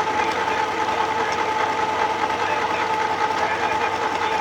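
Sewing machine running at a steady speed, a continuous mechanical whir with a steady hum.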